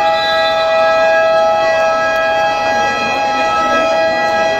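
Gym scoreboard buzzer sounding one long, steady, unbroken note, marking the end of the basketball game.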